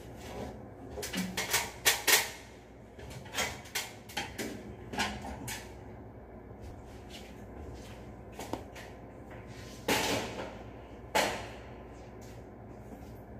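Knocks and clatters of the elevator's louvered metal ceiling light panels being handled and shifted, in scattered bursts, loudest about two seconds in and again around ten and eleven seconds, over a steady low hum.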